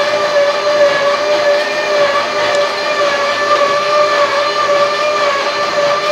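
A steady, loud whine held at one pitch with several overtones and a slight waver.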